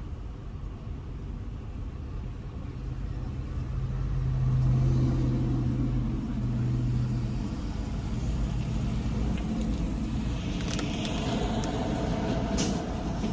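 Car engine and road rumble heard from inside the car, the engine hum swelling louder about four seconds in as the car gets going. A couple of sharp clicks sound near the end.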